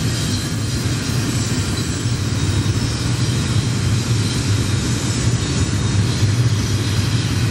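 Double-stack intermodal freight cars rolling past at speed: a steady rumble of steel wheels on rail.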